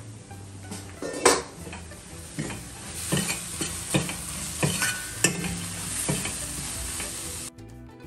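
Mutton in tomato masala sizzling in a pan while a spatula stirs it, scraping and knocking against the pan several times. The sizzle cuts off suddenly near the end.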